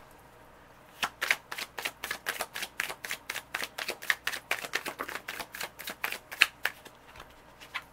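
A deck of Wild Unknown Tarot cards being shuffled overhand, hand to hand: a quick run of light card slaps, several a second, starting about a second in and stopping shortly before the end.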